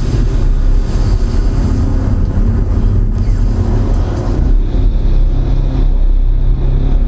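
Movie soundtrack effects played loudly over a home-theater speaker system with dual subwoofers and recorded in the room. The sound is a continuous heavy low rumble with noisy crashing over it.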